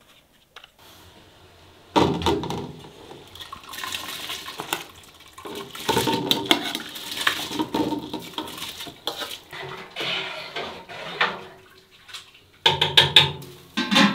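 A perforated metal skimmer scooping wet rice in an enamel basin: metal scraping and clinking on the enamel, with wet rice and water sloshing. A louder clatter of metal comes near the end.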